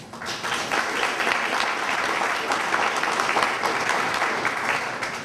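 Audience applauding, swelling within the first second and tailing off near the end.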